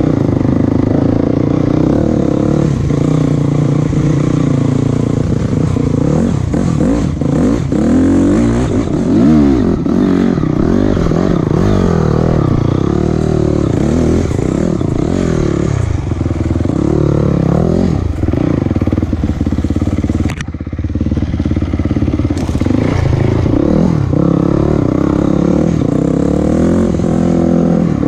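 A motor vehicle's engine running continuously while under way, its pitch rising and falling as the speed changes, with a brief drop in level about two-thirds of the way through.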